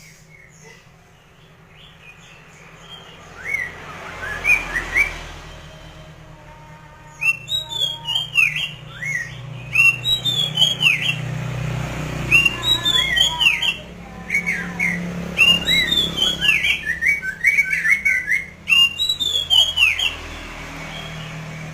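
A poksay mandarin, a laughingthrush, singing in rapid runs of loud whistled notes that sweep down in pitch, starting sparse and becoming almost continuous after a few seconds. A steady low hum lies underneath.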